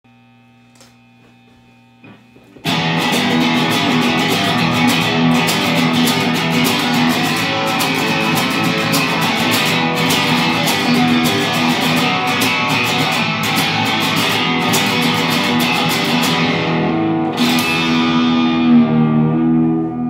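Distorted electric guitar riff played through a Vox combo amp, starting about two and a half seconds in after a low steady hum; near the end the playing gives way to a few ringing chords.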